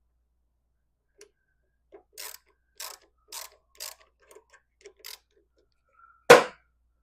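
Hand-tool work on motorcycle parts: a run of light metallic clicks, about two a second, then one loud sharp knock near the end.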